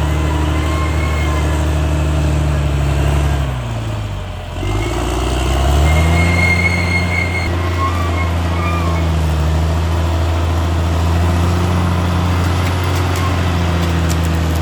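Diesel engine of a Caterpillar D6R XL bulldozer running hard. Its revs sag about four seconds in and pick back up by about six seconds. Brief high squeals sound over the engine.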